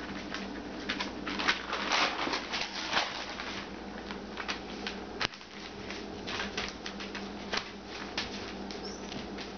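Alaskan Malamute puppies scampering about, their paws and claws pattering and scratching on crinkling newspaper and a blanket: a run of irregular small clicks and rustles, busiest in the first three seconds.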